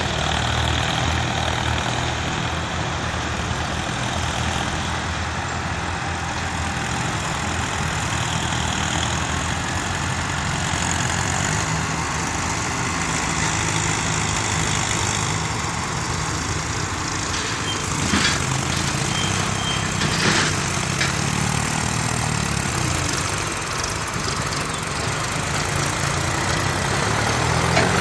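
New Holland 3630 tractor's three-cylinder diesel engine running steadily under load as it pulls a box-type land leveller through loose sandy soil. Two sharp knocks come about two-thirds of the way through.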